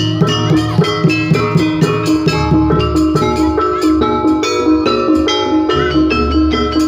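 Jaranan pegon music with heavy bass: tuned metal gamelan percussion ringing short repeated notes over a fast, steady drum beat.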